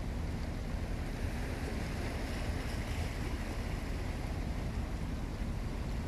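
Wind rumbling on the microphone over lapping harbour water, with a faint low hum from passing ships' engines.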